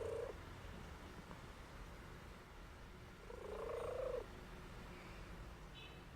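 A sleeping pet snoring: a pitched, rising snore about every four seconds, with one full snore past the middle.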